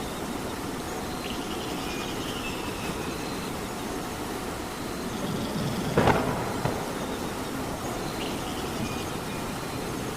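Steady rain hiss with a low rumbling undertone, and one sudden louder sound about six seconds in.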